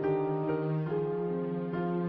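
Soft background music: a gentle piano-like melody of held notes changing about every half second.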